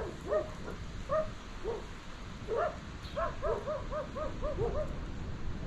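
Dogs barking, short single barks at first and then a quick run of about seven barks a little past the middle.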